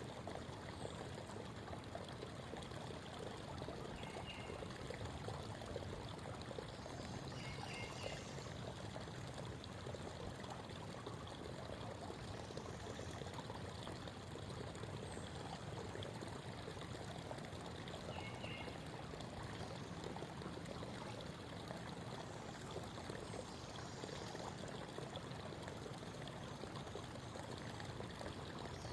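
Creek water babbling steadily over rocks, with a few faint short high chirps over it.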